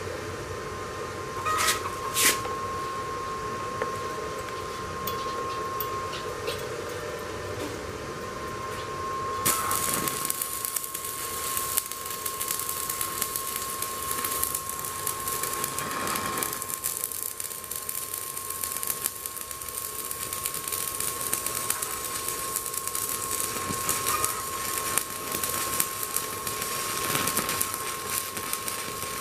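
Stick (MMA) welding arc from a Daiden MIGI130 inverter welder set to 50 amps. Two short crackles come about two seconds in; about nine seconds in the arc strikes and crackles and sizzles steadily. A steady high tone runs underneath.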